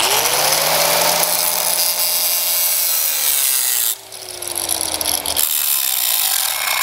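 Electric angle grinder spinning up and grinding into the weld on a steel pipe, its motor pitch sinking slowly as the disc bears into the metal. The sound breaks off briefly about four seconds in and again about five and a half seconds in, then carries on. This is the grinding-out of a slag inclusion in a stick weld before it is rewelded.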